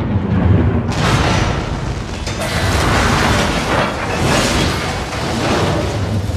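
Film sound effects of a spaceship crash-landing in snow: a heavy low rumble, then a long rushing crash noise from about a second in, with dramatic score music underneath.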